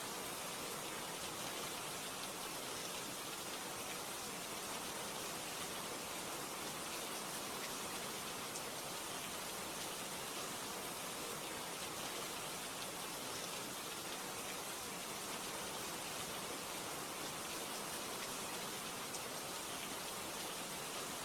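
Steady rain, an even hiss that holds at one level throughout without letting up.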